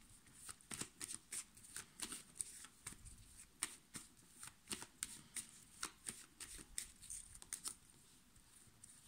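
A deck of tarot cards being shuffled by hand: a run of soft card clicks and flicks, about three a second, dying away in the last second.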